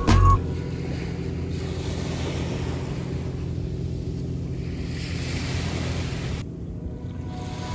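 Surf washing on a sandy beach, with wind rumbling on the microphone. A wash of surf hiss builds for a few seconds and then drops off abruptly near the end.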